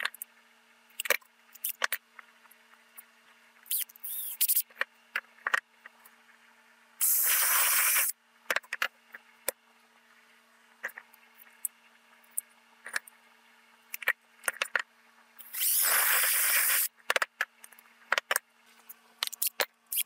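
Drill boring a hole through a pressure-treated wood board with a spade bit, in two hissing bursts of about a second each, one about seven seconds in and one about fifteen seconds in. Sharp clicks and knocks of tools being handled on a wooden bench fall between them.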